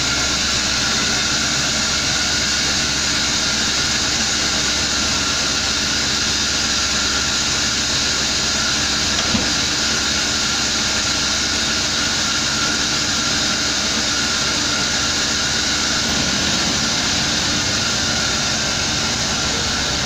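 Large sawmill log band saw running steadily, its blade cutting lengthwise through a big pine log as the carriage carries it along the rails: a loud, even hiss and rumble. One short knock stands out about nine seconds in.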